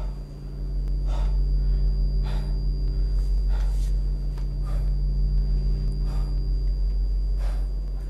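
A man breathing heavily in short gasping breaths, about one a second, dazed and dizzy, over a steady low electrical hum.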